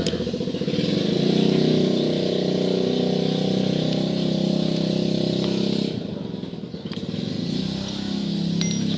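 A small engine running steadily, fading for about a second around six seconds in, then running on.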